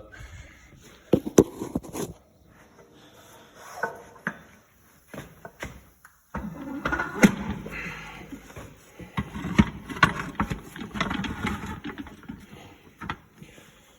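Metal transmission parts being handled and set in place: sharp knocks about a second in, then a busier stretch of clattering, scraping and knocking from about six seconds in.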